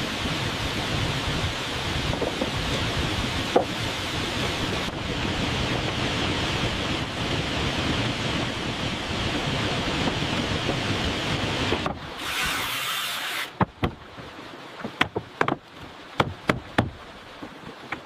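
Steady rushing noise of a waterfall for about twelve seconds. After a brief higher hiss the rushing drops away, and a scattering of sharp knocks and clicks follows to the end.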